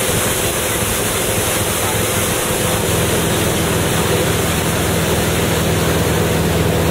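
Tow boat's engine running steadily at speed under the rush of its wake and spray, with wind on the microphone.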